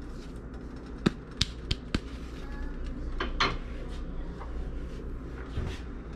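Sharp clinks and knocks of kitchen utensils against a metal pan: four quick ones about a second in, a couple more past the middle and a last one near the end, over a low steady hum.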